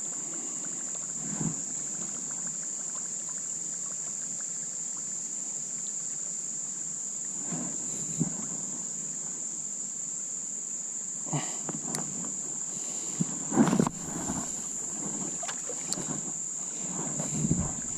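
Insects buzzing steadily in one high-pitched tone, with a few short knocks and splashes scattered through it, the loudest about fourteen seconds in.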